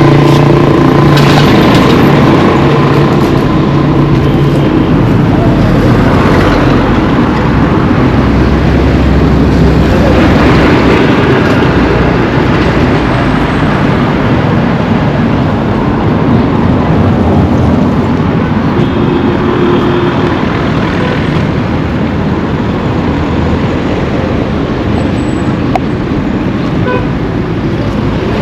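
Road traffic passing close by: motor vehicle engines and tyre noise. A steady engine hum fades out about five seconds in.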